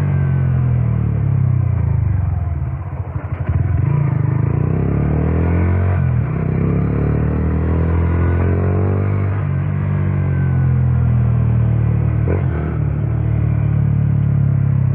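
Honda Titan 150's single-cylinder four-stroke motorcycle engine running under way, its pitch rising and falling with the throttle. It dips briefly about three seconds in as the throttle is eased off, then picks up again.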